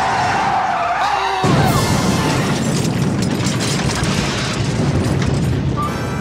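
Car tyres squealing in a skid over music, then about a second and a half in a sudden loud impact followed by a long rumbling noise.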